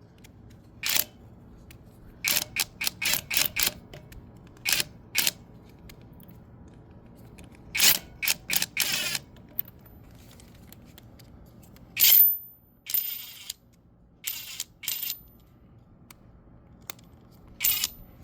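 Small 12-volt 1/4-inch cordless impact wrench (Hyper Tough) run in short trigger bursts against a bolt, making groups of sharp rattling clicks. The loudest burst comes about twelve seconds in, with a brief high whine. The wrench fails to move the bolt and breaks during these tries.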